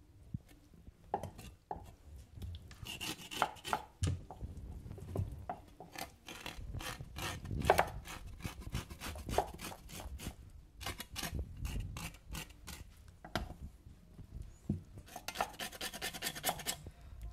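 Knife blade scraping over the wet skin of a scalded, plucked chicken in many quick, irregular strokes, taking off the pin feathers, with hands rubbing and handling the bird between strokes.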